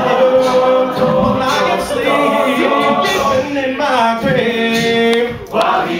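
All-male a cappella group singing, several voices holding chords together with notes that glide between pitches, and a brief dip about five and a half seconds in.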